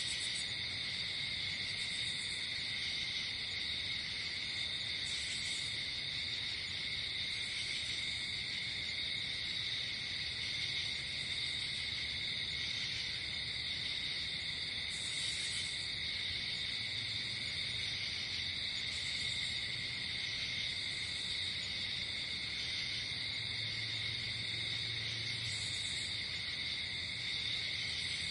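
Night insect chorus: crickets trilling steadily without a break, with a higher-pitched chirp recurring every few seconds.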